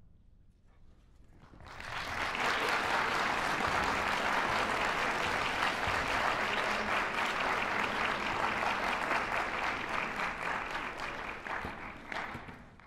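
Audience applauding in an auditorium: the clapping starts about two seconds in, after a short hush, holds steady, then cuts off near the end.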